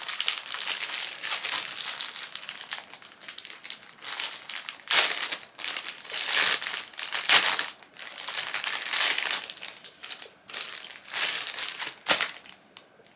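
Crinkly packaging crinkling and crumpling as it is handled and unwrapped, in irregular rustling bursts, loudest about five and seven seconds in.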